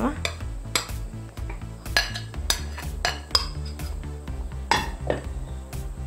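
Light, scattered clinks of a metal utensil against a glass mixing bowl, about eight in all, some ringing briefly, as dry flour is added and stirred, over soft background music with steady low notes.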